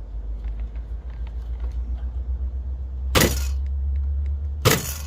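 A steady low rumble with scattered small clicks, and two short, loud, harsh bursts of noise about three and four and a half seconds in, from a stiff cold plastic part being forced into place on a kettle grill.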